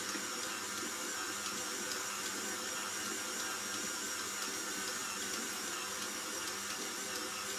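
KitchenAid stand mixer running steadily with a high motor whine, kneading a dense yeast dough in its steel bowl.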